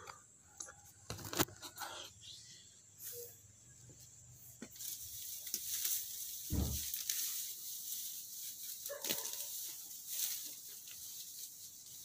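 Knocks as the phone is handled and set down, then steady rustling of leaves and soil as plants are worked by hand, with one dull thump about six and a half seconds in.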